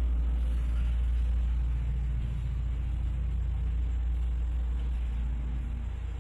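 A loud, steady low rumble that eases slightly near the end.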